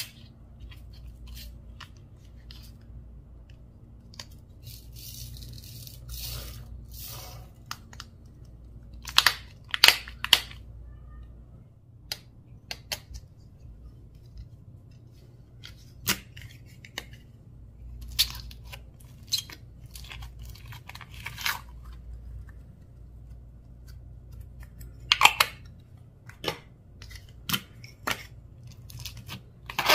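Slime with mini balls mixed in, being squished and stretched by hand, giving irregular sharp pops, crackles and crunches. The loudest bursts come about a third of the way in and again near the end.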